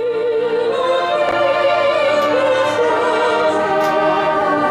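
A woman singing solo into a handheld microphone, holding long notes with a wide vibrato.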